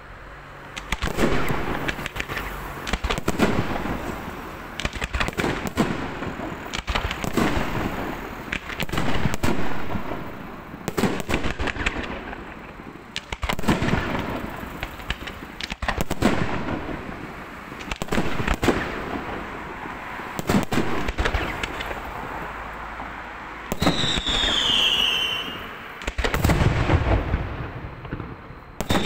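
Aerial fireworks display: shells launching and bursting in quick succession, with loud booming reports and crackle. Near the end a whistling firework sounds, its pitch falling.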